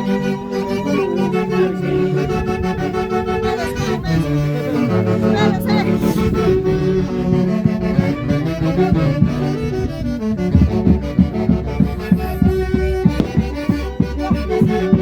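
Andean folk orchestra playing a tune, with held wind melody lines over a lower accompaniment. About ten seconds in, a steady beat of low bass notes starts, roughly two a second.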